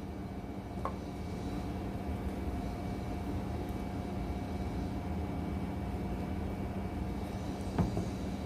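Steady machine hum of the room, like an air conditioner, with two soft clicks, about a second in and near the end, as the watch box is handled and opened.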